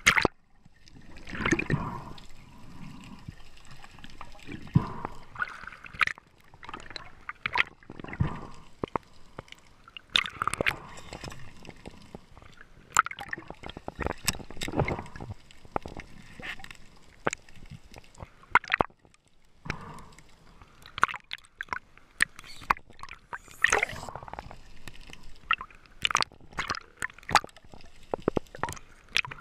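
Water gurgling and sloshing around the camera in uneven swells, with many sharp clicks and drips scattered throughout.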